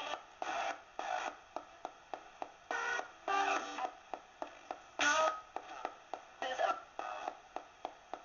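Ghost box radio sweeping through stations: a fast, even run of clicks, about three a second, with split-second snatches of broadcast voices and music between them.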